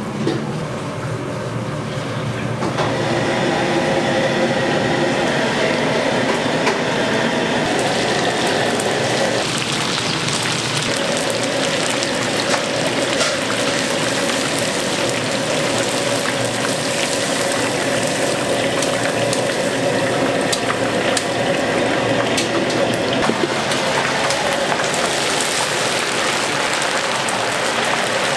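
Pork pieces squished by hand through thick batter for a couple of seconds. Then battered pork for sweet-and-sour pork (tangsuyuk) deep-frying in a wok of hot oil: a dense, steady sizzle and crackle.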